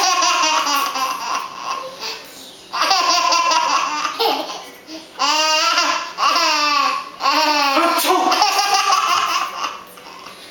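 A young child laughing hard in several long bouts of high-pitched, pulsing laughter, with short breaks between them.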